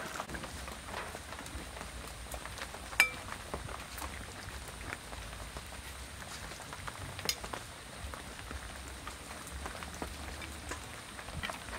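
Fish soup boiling in a large pot, a steady fizzing bubble with many small pops. A sharp ringing clink about three seconds in, and a lighter one about seven seconds in.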